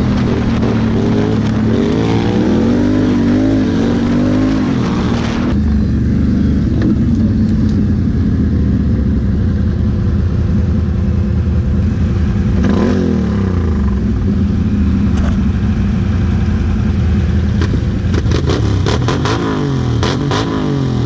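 Quad bike engines running: the ridden ATV's engine revs up and down on a dirt trail for the first few seconds, then runs lower and steadier once it stops, with a short rev about midway. Near the end another quad's engine revs alongside, with a quick run of clicks and rattles.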